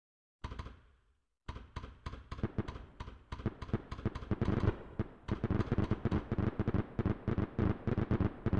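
Fireworks bursting: one bang about half a second in, then a rapid barrage of bangs, several a second, growing denser partway through like a finale.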